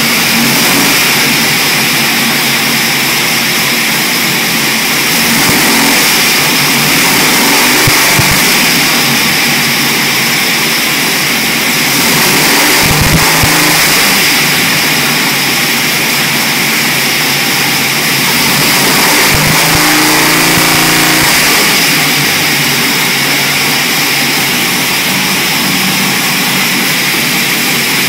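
Chevrolet V8 running on an engine dyno through tube headers, held near idle with its speed swelling up slightly a few times, while its ignition timing is checked with a timing light.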